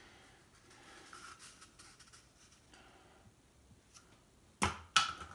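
Faint rustling and handling noise, then two sharp knocks about half a second apart near the end.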